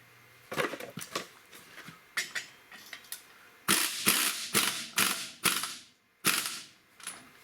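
Hand-tool work on metal: a series of short ratcheting strokes, sparse at first, then a quicker run of louder ones, about two a second, through the middle.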